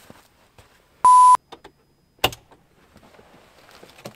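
A short, loud, steady electronic beep about a second in, lasting about a third of a second and cut off sharply, of the kind edited in to bleep out a flubbed take. A sharp thump follows about a second later.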